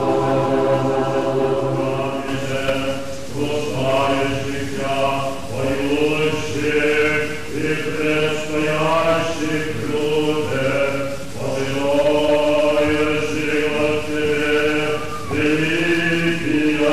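Orthodox church choir singing unaccompanied liturgical chant, in held notes and phrases that break every second or two.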